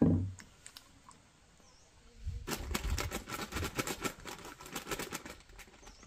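A short, sudden falling thump right at the start. From about two seconds in, a rapid, irregular clatter of splashing and rustling as hands work something in a plastic basin of water.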